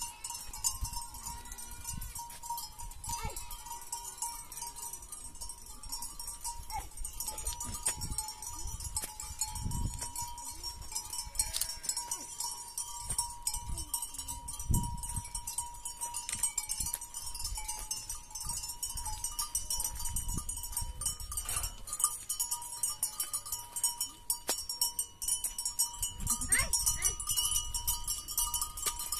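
Bells on a flock of sheep and goats ringing, with occasional bleating and a few low thumps.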